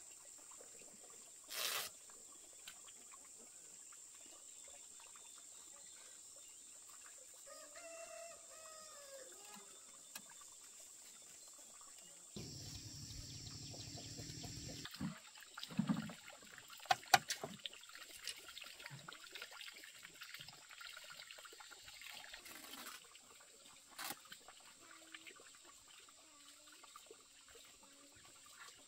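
A rooster crows once, an arched call of about two seconds, about eight seconds in. Scattered knocks and clatters follow, loudest around sixteen to seventeen seconds in, along with a few seconds of rushing noise just before them.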